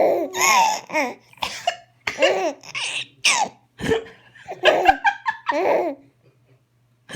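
Baby laughing in a run of short, high-pitched bursts with brief gaps between them, set off by her mother's hiccups; the laughter stops about six seconds in.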